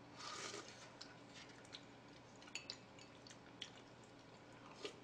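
Faint table-eating sounds: a brief soft sip or slurp from a bowl at the start, then a few scattered light clicks of spoons against small plates.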